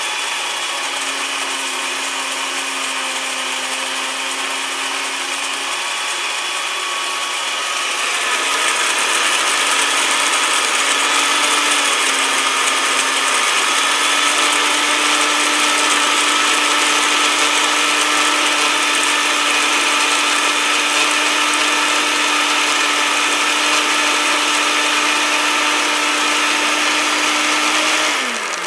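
Countertop blender motor running, grinding graham crackers into crumbs. The hum steps up in pitch a couple of times and gets louder about eight seconds in, then winds down and stops near the end.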